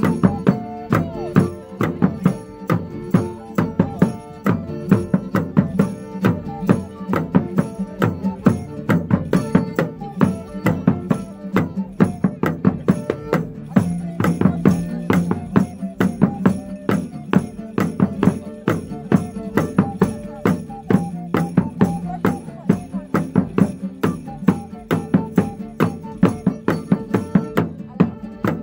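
Medieval-style folk band playing live: wooden pipes carry the melody over plucked lute-type instruments, with a laced wooden drum struck with sticks in a steady beat.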